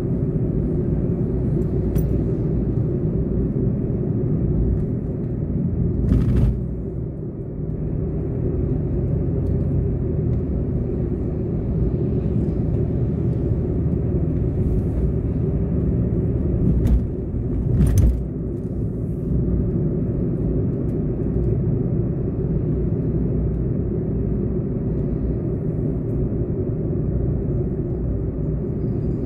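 Steady low road and engine rumble of a car driving on a paved road, with two brief louder thumps about six seconds and eighteen seconds in.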